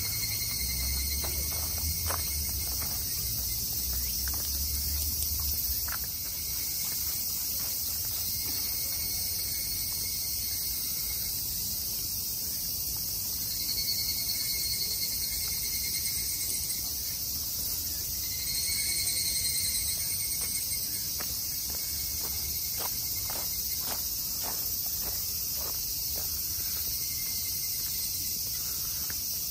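A chorus of cicadas in the trees gives a steady high buzz. A nearer call swells and fades a few times. Footsteps crunch on gravel in between.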